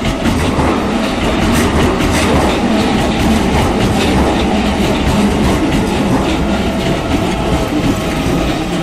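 Keikyu Line electric train passing close by over a level crossing, its wheels clattering over the rail joints in a steady run of knocks.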